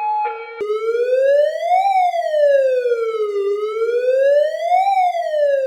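Ambulance electronic siren: a two-tone hi-lo alternation that changes about half a second in to a wail, its pitch rising and falling slowly, about three seconds per cycle.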